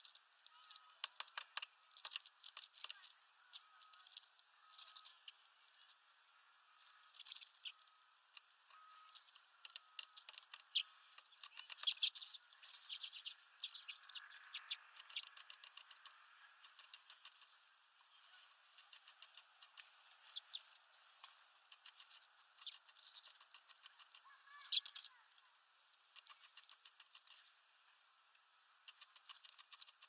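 Small birds, a great tit among them, pecking seed on a window-ledge feeder: an irregular run of sharp little clicks and taps, thickest around the middle, with pauses between.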